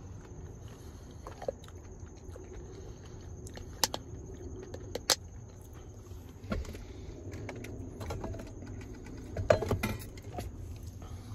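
Handling noise: irregular clicks and knocks of small objects being handled, sharpest twice about 4 seconds in and once about 5 seconds in, and loudest in a short cluster near the end, over a steady low rumble.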